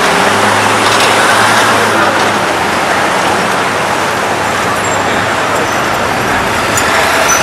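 City street traffic noise with a vehicle engine running, its low hum steady for the first few seconds and then fading into the general road noise.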